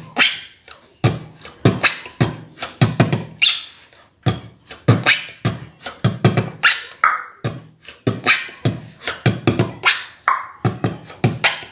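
A person beatboxing a steady beat of mouth kicks and snares, about two strikes a second, working in the high-pitched zipper, or mouse squeak, sound.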